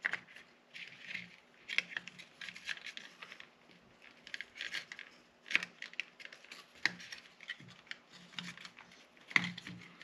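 Small plastic clicks and light scraping as a circuit board is pried out of a seat heater switch's plastic back housing, its retaining clips snapping loose. Several sharp clicks, the clearest about halfway through.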